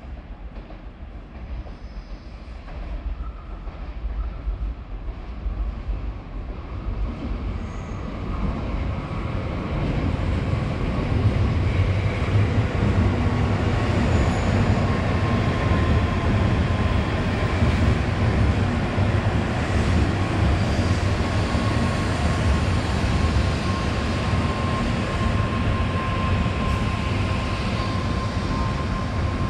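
N700-series Shinkansen train pulling into the station. Its rumble builds over the first ten seconds as it approaches, then holds steady as the long train rolls slowly along the platform. A thin steady whine sits over the rumble from about halfway through.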